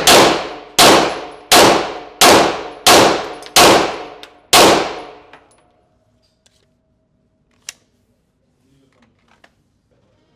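Glock pistol firing a steady string of seven shots about two-thirds of a second apart, each shot ringing out with a long tail; a few seconds later comes one sharp click.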